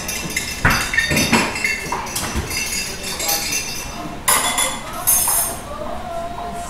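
Dishes and utensils clinking on a kitchen counter: a series of sharp clinks and knocks, the loudest about a second in and again past the four- and five-second marks.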